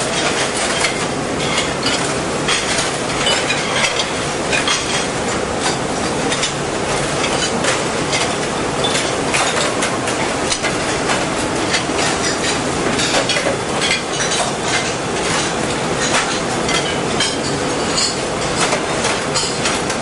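Flight-type conveyor dishwasher running: a steady mechanical rattle from its moving pegged belt, with frequent clinks of china plates being set into the pegs.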